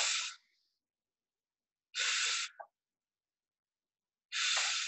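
A woman's breaths under exertion, hard and hissing: three short breaths about two seconds apart, each about half a second long, as she works through single-leg glute bridge lifts.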